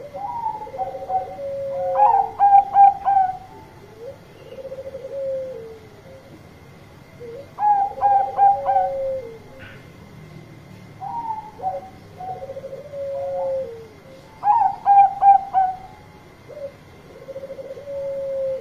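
Bangkok-type zebra dove (perkutut) cooing loudly in repeated phrases, each a run of quick staccato notes followed by a lower rolling coo, coming every few seconds.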